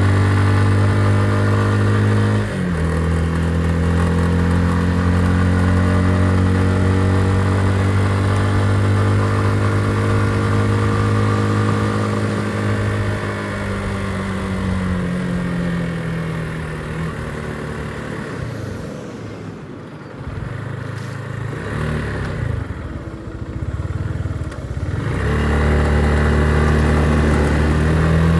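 Motorcycle engine running under way: a shift in engine pitch about two and a half seconds in, then the note slowly falls as it slows down, runs low and quieter for several seconds, and picks up again as it accelerates near the end.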